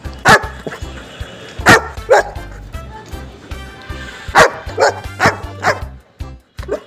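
A dog barking: about eight short, sharp barks spaced unevenly, some in quick pairs, over background music.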